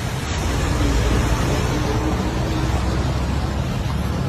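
An engine running steadily under a broad rushing noise, with a strong low rumble.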